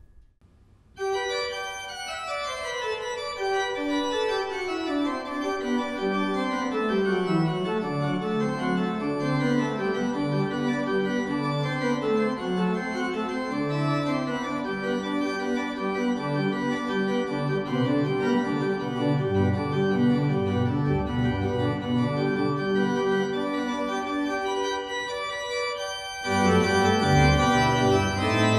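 Pipe organ music. After about a second of near silence, a line of notes steps down from high to low over several seconds and builds into full chords. Deep pedal bass notes join about two-thirds of the way through, and after a brief break near the end the organ comes back louder on full chords.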